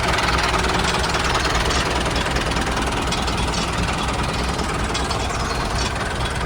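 Small motor of a DIY miniature farm machine running steadily, a wide whirring noise over a low pulsing hum.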